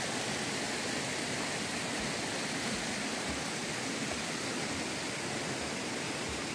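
Steady rushing of a waterfall pouring over rocks into a pool, an even hiss of falling water with no breaks.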